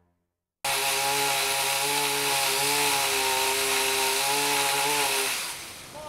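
Chainsaw running at a steady speed, cutting in suddenly about half a second in, then dropping to a lower, quieter speed near the end.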